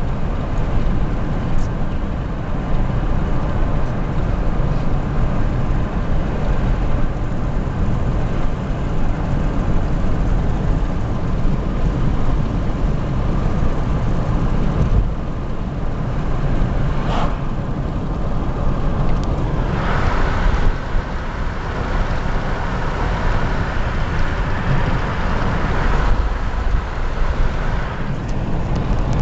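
A car driving along a road: steady low road and engine noise, with a few brief louder swells.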